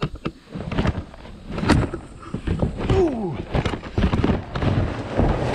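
Renovation debris (drywall bits, wood scraps and paper) tipped from a plastic bucket into an empty steel roll-off dumpster: an irregular string of clattering knocks and bangs on the metal.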